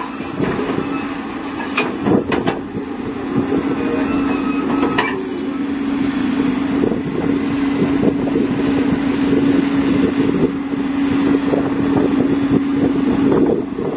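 Heavy diesel machinery engine running steadily with a constant hum, which drops away near the end. A few sharp knocks sound in the first few seconds.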